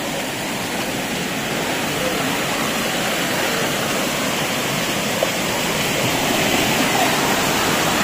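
Waterfall and the stream below it rushing over rocks: a steady rush of falling water that grows a little louder toward the end.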